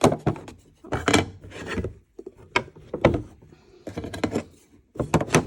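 Camping kitchen gear and stacked toolbox compartments being handled: a run of knocks, clatters and rubbing scrapes in several short bursts.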